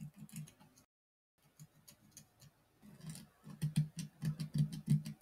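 Needle file rasping back and forth through the joint holes of a 3D-printed plastic part, smoothing tight-fitting joints; about four strokes a second, with a brief break about a second in.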